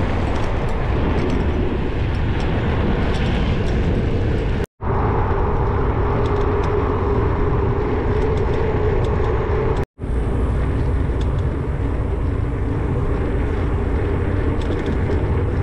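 Steady wind rushing over the camera microphone while riding a touring bicycle along a highway. It breaks off for an instant twice, about a third and two-thirds of the way through.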